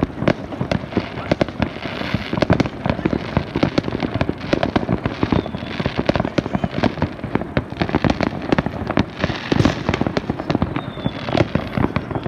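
Aerial fireworks display: shells bursting in a dense, unbroken run of bangs and crackles, many a second.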